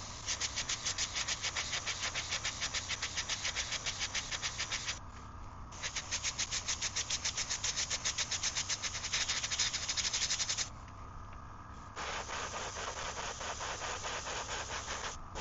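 Airbrush spraying purple paint onto a 3D-printed swimbait: three long bursts of fluttering air-and-paint hiss with short pauses between them, over a steady low hum.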